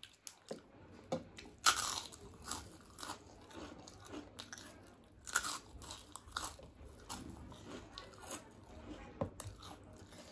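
Close-up biting and crunching of fried papad, with chewing between the crunches. There are several sharp crunches at irregular intervals, the loudest about two seconds in and again around five seconds in.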